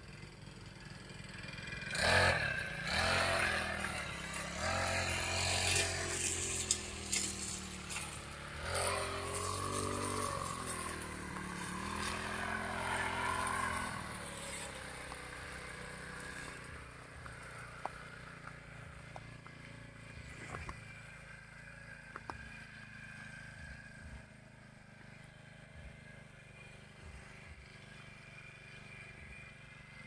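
Petrol brush cutter engine running and revving up and down unevenly as it cuts grass. About halfway through it drops to a quieter, steady run, with a few sharp ticks.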